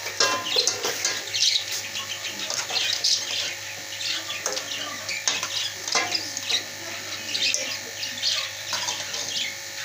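Metal ladle scraping and clinking against steel cooking pots as chicken curry is spooned from one pot into another, giving many short, irregular high clinks and scrapes.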